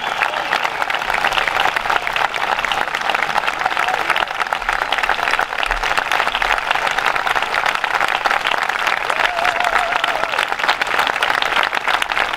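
A large audience applauding, dense steady clapping from many hands.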